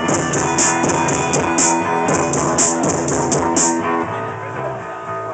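Live rock music in an instrumental passage: plucked bass-guitar notes and held tones over a beat of crisp, evenly repeating high percussion hits. The percussion stops near the end, leaving the sustained notes.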